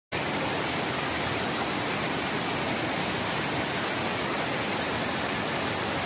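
Water pouring over an irrigation tank's overflow weir and churning in the pool below it: a steady, even rushing.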